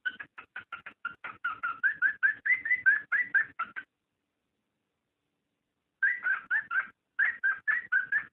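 Cockatiel mating chatter: rapid runs of short chirps, about six a second, wavering slightly in pitch. They stop abruptly for about two seconds midway, then start again.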